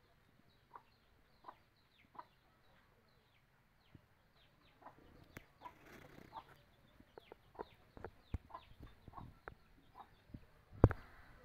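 Chickens clucking softly while they forage: short clucks under a second apart at first, getting busier from about halfway, with thin high peeps and light pecking or scratching taps. A single sharp knock near the end is the loudest sound.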